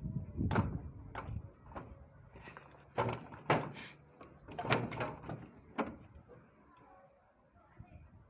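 A series of irregular knocks and clunks from hard objects, about seven over the first six seconds, the loudest in the middle, then only a low background.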